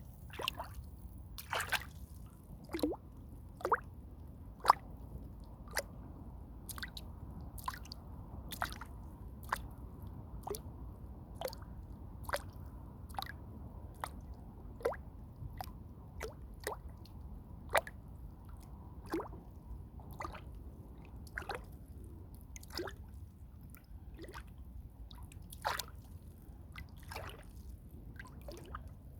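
Water plopping and dripping in irregular single drops, roughly one a second, some louder than others, over a steady low rumble.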